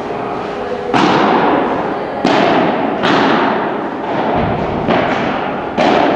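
Padel rally: about five sharp hits of the ball on rackets and court, roughly a second apart, each with a long echo in a large indoor hall.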